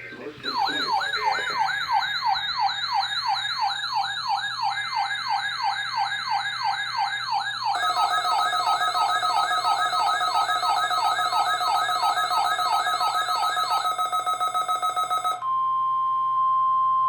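Weather radio receivers sounding their alert alarms for a NOAA Weather Radio weekly test: a siren-like falling sweep repeating about three times a second, joined about eight seconds in by a steady buzzing two-tone alarm. Both stop near the end, leaving the broadcast's single steady warning alarm tone.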